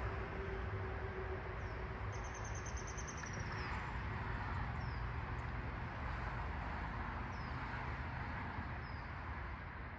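Outdoor ambience: a steady low rumble and hiss, with a bird giving short, high, falling chirps every second or two and a brief rapid high trill about two seconds in.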